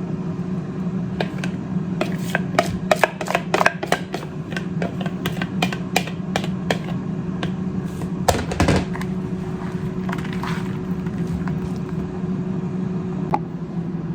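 Utensil clicking and tapping against a bowl as coleslaw is stirred, a cluster of irregular taps over the first nine seconds or so and one more near the end, over the steady hum of an air fryer running.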